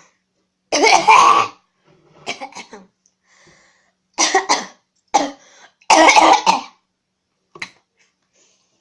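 A person coughing hard in several loud bursts spread over the few seconds, with quieter throat noises between them.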